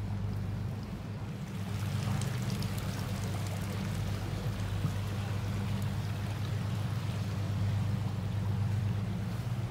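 A canal tour boat's engine running with a steady low hum, under a continuous rushing and splashing of water along the hull that grows a little louder about two seconds in.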